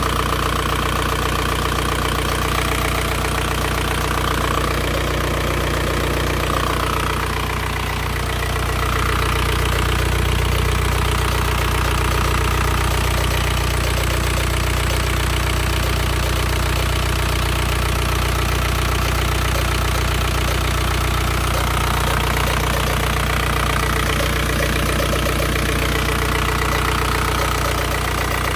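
VW ALH 1.9 TDI four-cylinder turbodiesel idling steadily with a regular beat, making a noise that has appeared since its timing belt was replaced.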